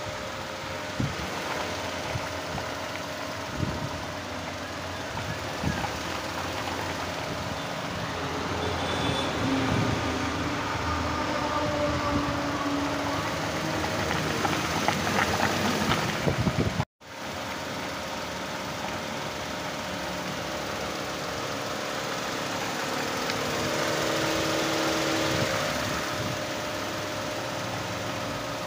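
Skoda Fabia engine idling steadily with the bonnet open, while it is overheating.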